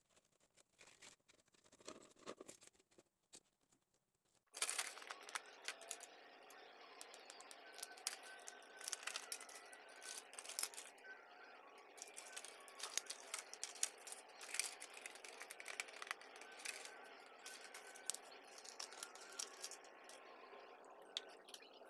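Light crinkling, clicks and crackles of a clear plastic water gallon being handled, cut with scissors and wrapped with masking tape. A steady background hiss comes in abruptly about four and a half seconds in.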